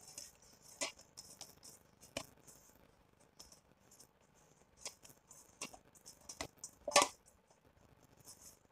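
Hands handling a soft ball of freshly kneaded, oiled flour dough in a mixing bowl: scattered soft taps and rustles, with one sharper knock about seven seconds in.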